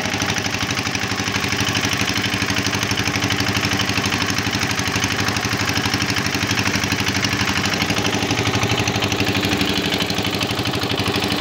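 A small fishing boat's engine running steadily with a fast, even pulse.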